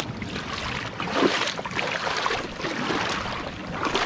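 Shallow seawater washing and trickling among shoreline rocks in a tide pool, with a few short crunching steps on wet gravel and broken shell.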